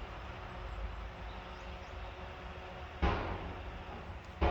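Two sharp knocks, one about three seconds in and one near the end, over a steady low background rumble.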